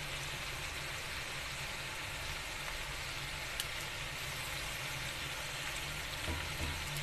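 Quail and tomatoes sizzling steadily in hot oil in a karahi, with a single sharp click about three and a half seconds in and a faint low hum underneath.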